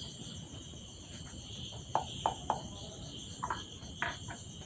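Crickets chirring steadily in a high pitch, with a few faint short taps scattered through.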